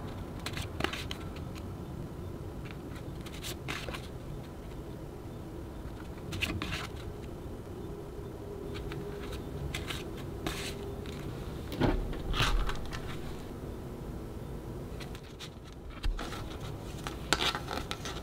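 Photocards and a card sleeve being handled: scattered short scrapes, taps and rustles of card against card and fingernails, the loudest about two-thirds through and near the end.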